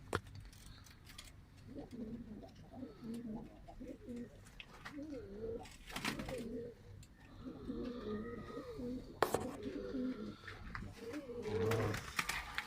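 Domestic pigeons cooing, several calls overlapping throughout, with a couple of sharp clicks about halfway through.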